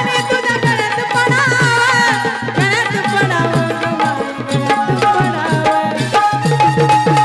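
Live Marathi folk music: dholki drums keep up a steady beat of deep strokes that bend in pitch, under a wavering melodic line that settles into one long held note in the second half.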